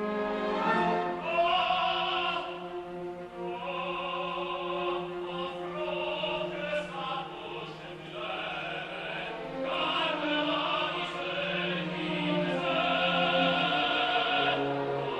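Operatic tenor singing with orchestral accompaniment, long held notes swelling louder in the last few seconds.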